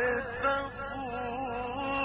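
A man reciting the Quran in the melodic Egyptian mujawwad style, holding long, ornamented notes whose pitch wavers up and down.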